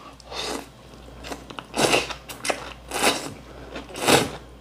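Ramyeon noodles being slurped and chewed: about four short, noisy slurps, roughly a second apart.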